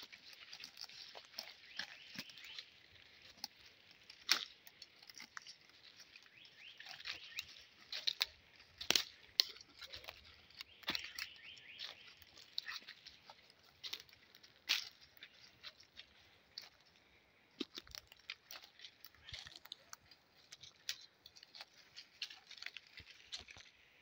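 Footsteps of several hikers crunching and crackling over dry leaf litter and twigs on a forest floor, as irregular snaps over a steady high hiss.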